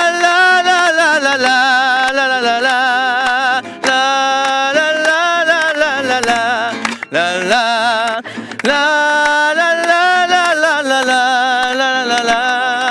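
A single voice singing long, wordless held notes with a wide wavering vibrato, in four phrases with short breaths between them, over acoustic guitar.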